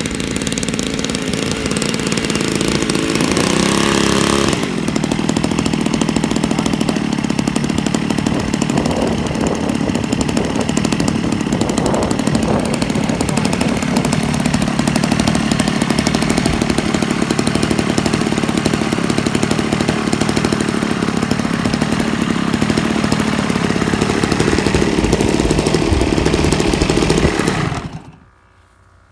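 Giant-scale RC airplane engine running steadily and loudly, its note changing about four seconds in, then cut off abruptly near the end.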